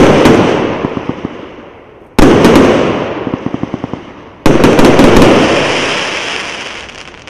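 Consumer firework cake of 1.2-inch (30 mm) shots, its last shots going off: three loud bursts about two seconds apart, each followed by crackling that fades away.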